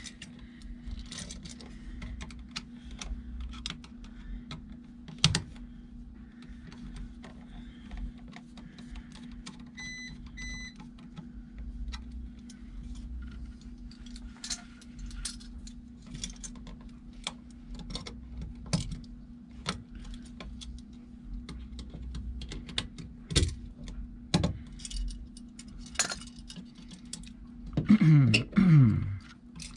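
Scattered small clicks, taps and rattles of an old 15-amp duplex receptacle being handled and worked out of its wall box, its wires and mounting strap knocking against the box. About ten seconds in, a battery backup (UPS) on the switched-off circuit beeps twice, over a steady low hum.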